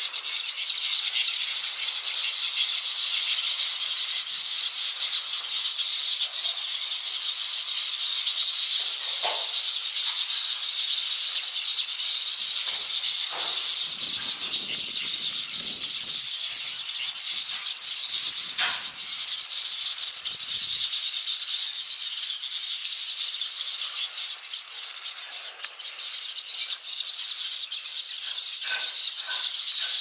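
A colony of weaver birds chattering: a dense, unbroken, rattling chatter, with a low rumble in the middle and a few short higher notes near the end.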